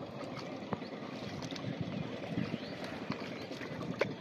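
Water sloshing and splashing as hands grope through shallow muddy water, with scattered small splashes and ticks.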